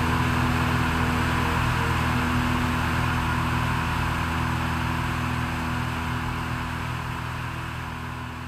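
Cessna 172's piston engine and propeller drone steadily in cruise with wind rushing over the wing-mounted camera, fading out gradually over the last few seconds.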